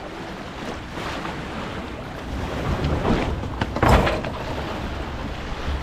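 Wind buffeting the microphone and water rushing along the hull of a sailing yacht under way, a steady rough noise that swells to a louder surge a little before four seconds in.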